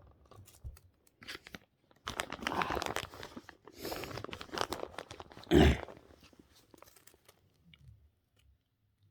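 Crinkling, crunching noise close to the microphone in two bursts, with a sharp knock about five and a half seconds in.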